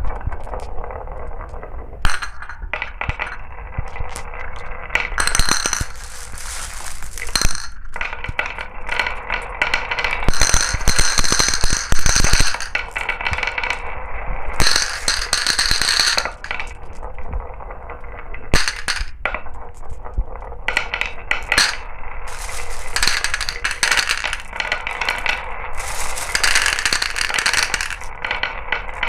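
Glass marbles rolling and clattering down a marble run: a continuous rattle of many small clicks and clinks that swells and thins as marbles pass.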